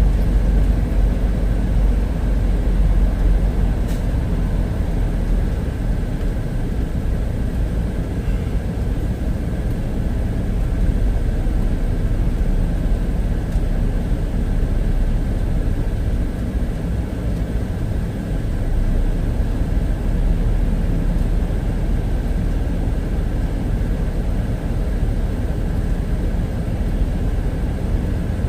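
Semi truck's diesel engine running with a steady low rumble as the rig drives slowly, heard from inside the cab.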